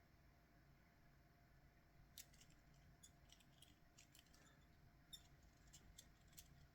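Near silence: faint room tone with a scattering of small light clicks and taps, as of tools and wire being handled during soldering.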